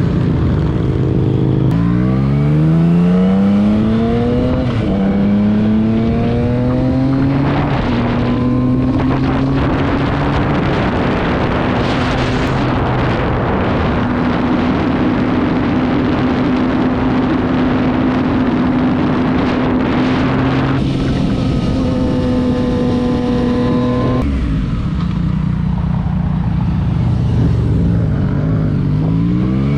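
Motorcycle engine accelerating through the gears, its pitch climbing and then dropping at each upshift, before holding steady at cruising speed under heavy wind and road noise. About 24 seconds in the revs fall off to a low steady sound, and near the end the engine pulls away again with rising pitch.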